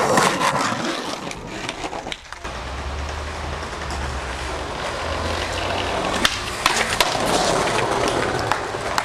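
Skateboard wheels rolling over rough pavement and brick paving, with a few sharp clacks of the board hitting the ground near the end.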